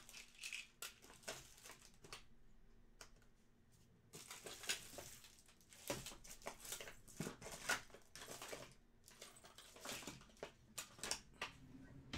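Faint crinkling and rustling with many scattered small clicks and taps, as trading cards and a foil pack wrapper are handled. The rustling is densest for a couple of seconds about four seconds in.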